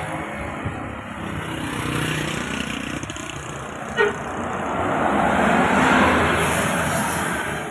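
Mercedes-Benz coach bus engine running as the bus comes up the road and passes close by. The engine rises in pitch, then the sound swells to its loudest about six seconds in and begins to fade. There is a short sharp click about four seconds in.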